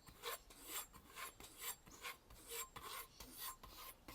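Knife edge stroked back and forth on a kangaroo-tail leather strop, faint light strokes about two a second, the blade rubbing over the leather's ribs.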